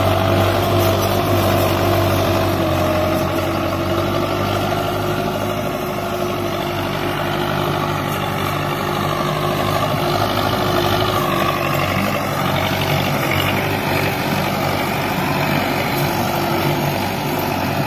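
Farm tractor's diesel engine running steadily under load as it pulls a land leveler. The pitch wavers slightly a little past halfway.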